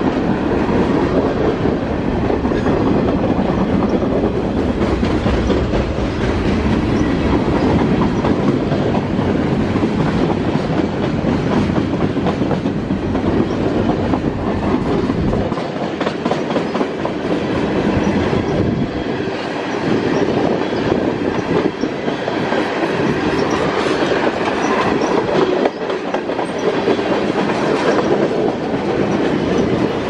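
A train rolling past close by, its wheels clicking over the rail joints in a steady rolling rumble. The deepest part of the rumble eases about halfway through while the cars keep rolling.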